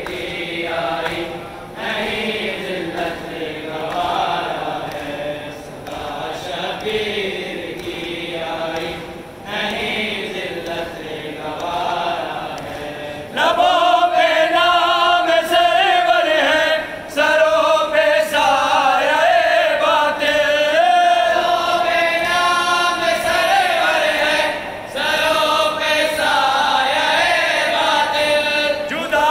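Male voices chanting a noha, a Muharram lament for Imam Husayn, unaccompanied. About thirteen seconds in, a single louder and higher voice takes up the chant.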